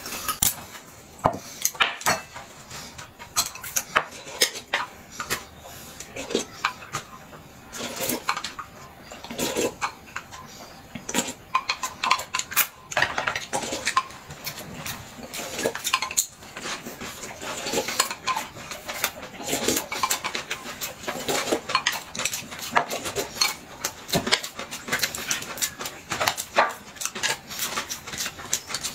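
Chopsticks tapping and clinking against a small glass bowl and plates as sauce is stirred and pancake wrappers are filled, in many irregular light clicks.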